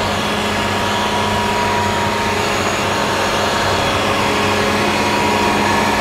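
Fendt IDEAL 10T combine harvester running steadily as it cuts and threshes wheat: a constant machinery drone with steady humming tones and a faint higher whine.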